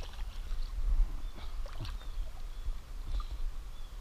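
Shallow river water splashing and sloshing as a small fish, a chub, is brought in by hand, over a steady low rumble on the microphone.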